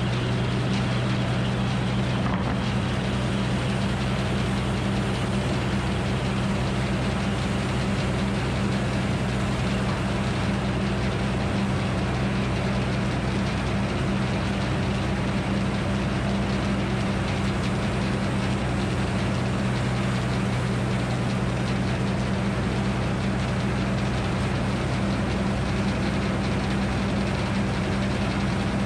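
Circular sawmill running steadily, its drive and big blade giving an even low hum with no rise or drop and no cut through the wood.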